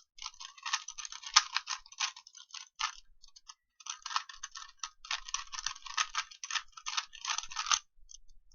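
A plastic 3x3 Rubik's Cube being turned quickly by hand during a speed solve: rapid clicking and clacking of its layers in fast runs of turns, with short pauses around three seconds in and near the end.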